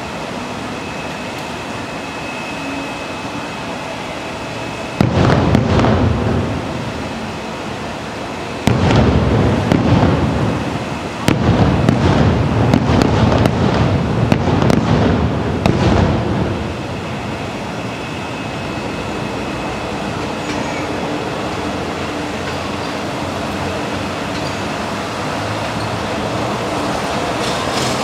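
Aerial fireworks bursting: a loud boom about five seconds in, another near nine seconds, then a rapid volley of booms and crackles lasting about five seconds. Steady background noise runs underneath.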